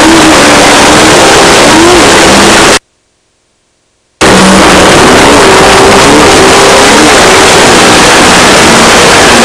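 Off-road race car engine running under load, heard from inside the car through a loud, distorted wash of noise, its pitch wavering slightly. The sound cuts out completely for about a second and a half a few seconds in, then comes back just as loud.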